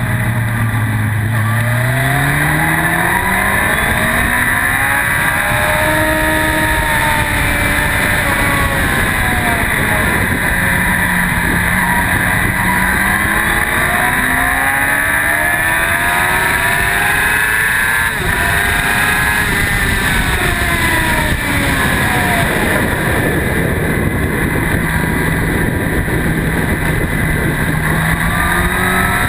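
Yamaha R1 inline-four sport-bike engine at racing speed, its revs climbing and dropping again and again through the corners, under a steady rush of wind on the microphone.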